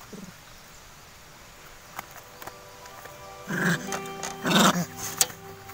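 Two loud, short harsh cries about a second apart, plausibly calls from long-tailed macaques, over light background music of held notes that comes in about halfway. There are a few sharp clicks.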